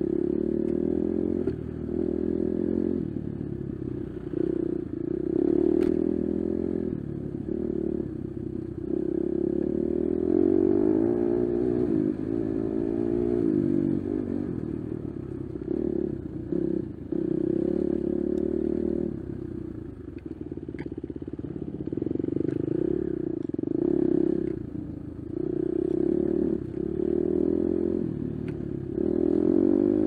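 Dirt bike engine running on and off the throttle while riding a rough jungle trail, its pitch rising and falling with each burst of power. There is some clatter and scraping from the bike over the rough ground.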